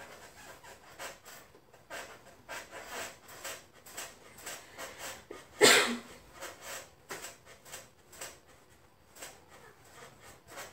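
Hands massaging a thigh on a treatment table: short irregular rubbing and rustling strokes of palms over skin and fabric, with one much louder burst about halfway through.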